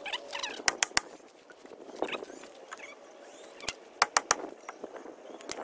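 Sledgehammer striking the wooden frame of a raised garden bed to drive it into the ground: sharp knocks, some in quick clusters of two or three, spaced a few seconds apart.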